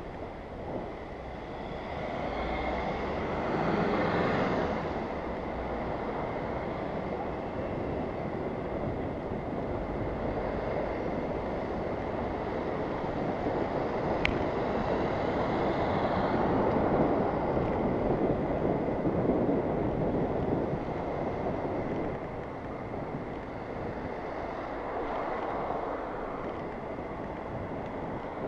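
Wind rushing over a cyclist's action camera microphone while riding in road traffic: a steady noisy rush that swells and eases, with vehicle noise underneath. One sharp click comes a little past the middle.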